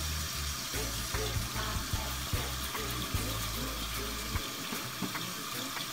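Bathroom faucet running into the sink in a steady hiss, while a soft-bristled toothbrush scrubs a sneaker's midsole.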